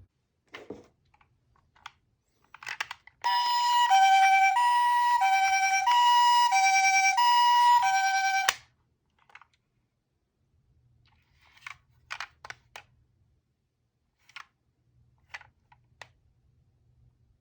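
Toy ambulance's electronic siren playing the Japanese ambulance hi-lo call, two tones alternating about every half second, for about five seconds before cutting off abruptly. Scattered light clicks and taps before and after it.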